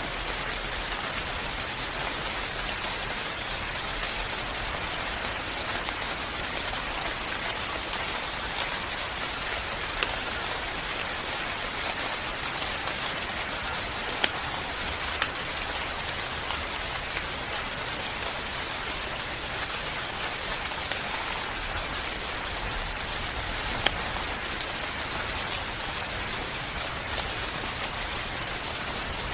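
Steady rain falling on a surface, an even hiss with individual drops ticking sharply now and then.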